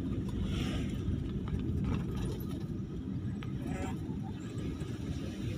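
A moving vehicle's steady low road and engine rumble while driving.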